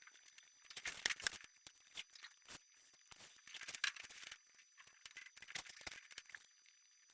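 Irregular scratching, crinkling and light clicking from hand work on foam board, in bursts about a second in and again around four seconds in.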